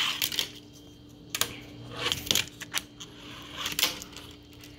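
A small homemade fingerboard clicking and clacking against a laptop lid as finger tricks are tried, in four quick clusters of sharp taps about a second apart.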